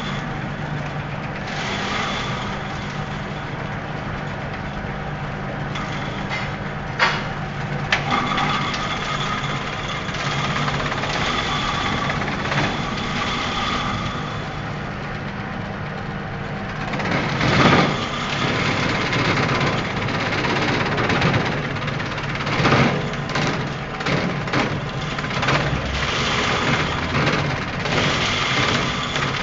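Engine-driven banana-stem chopping machine running steadily, with irregular loud crunches as stems are fed through the blades, coming more often in the second half.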